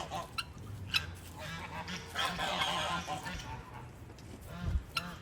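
Farmyard birds calling, a flock of guinea fowl with a turkey among them, in scattered calls of moderate loudness, with a few sharp clicks in between.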